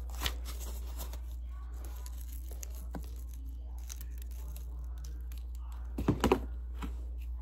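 A cardboard craft being handled close to the microphone: faint rubbing and rustling, with a quick cluster of sharp knocks about six seconds in.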